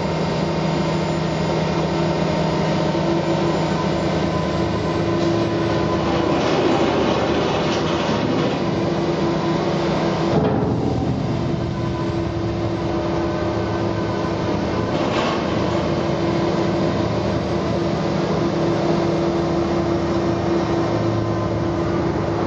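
Liebherr LB36 drilling rig's diesel engine and hydraulics running steadily, a loud machine drone with two steady hums in it. The lower hum stops about ten seconds in.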